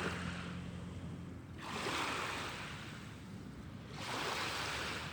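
Small waves washing on a lake beach with wind, a steady rushing noise that swells about a second and a half in and eases near the end, over a faint low hum at the start.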